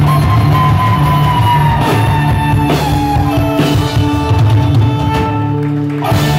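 Folk-punk band playing live at full volume: fiddle, electric guitars, bass and drum kit, with a long high note sliding slowly down in pitch over the first half. A loud accented hit comes near the end.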